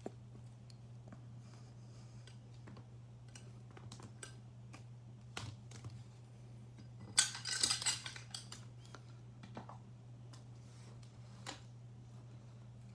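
Clear plastic card stands and top-loaded trading cards being picked up and handled: scattered light clicks and taps, with a denser plastic clatter about seven seconds in as the stands are gathered together. A steady low hum sits underneath.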